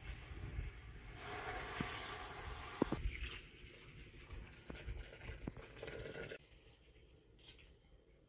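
Hot water is poured in a stream into a metal cooking pot of meat, chickpeas and potatoes for dizi. The splashing hiss is strongest for a couple of seconds, then a weaker pour follows, with a few light knocks against the pot. It dies down about six seconds in.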